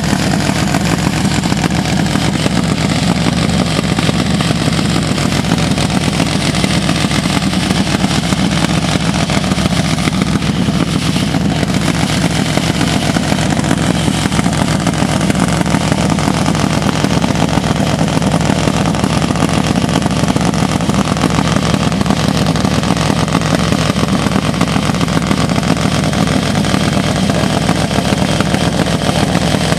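Motorcycle engine running steadily at a constant pitch, without revving.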